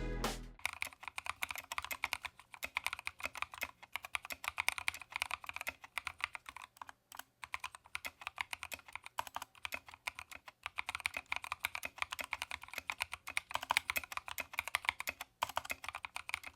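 Fast, continuous typing on a GK61X mechanical keyboard fitted with NovelKey Cream linear switches lubed with Krytox 205g0, with a few short pauses. This is a typing sound test of the finished build.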